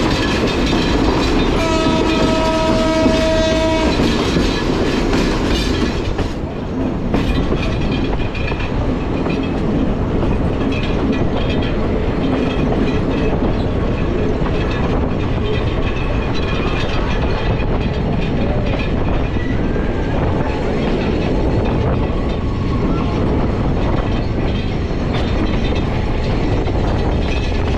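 Diesel-hauled passenger train running on the rails, a steady rumble with wheel clatter. About two seconds in, the locomotive's horn sounds one held chord of several tones for about two seconds.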